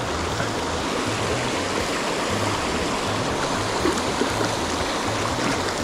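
Shallow, fast mountain stream rushing over rocks: a steady, even noise of flowing water.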